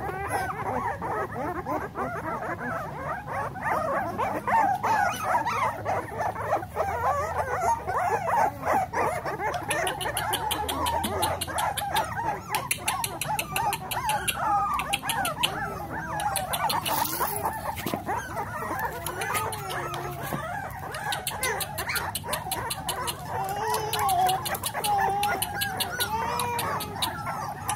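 A litter of very young blue nose pit bull puppies whining and squealing, many high cries overlapping and wavering up and down without a break.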